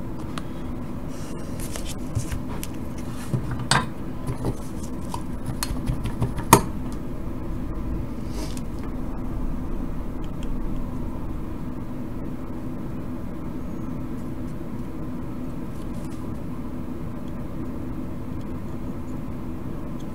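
Steady hum of a small solder fume extractor fan running, with a few sharp clicks and clinks from handling the soldering iron and circuit board, the loudest about six and a half seconds in.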